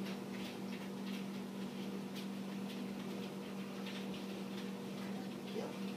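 A dog's paws and claws and a person's footsteps pattering with irregular light ticks on interlocking foam floor mats as the dog walks at heel. A steady low hum runs underneath.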